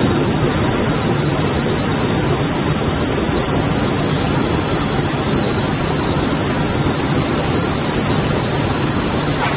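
Textile mill machinery running: a loud, steady din with a low hum and a thin, high, steady whine, from the automatic fabric end-joining machine and the plant around it.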